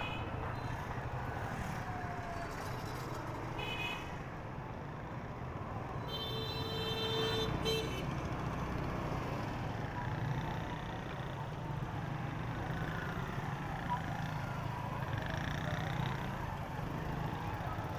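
Motorcycle engine running under busy street traffic while riding. A brief beep comes about four seconds in, and a vehicle horn sounds for about a second and a half about six seconds in.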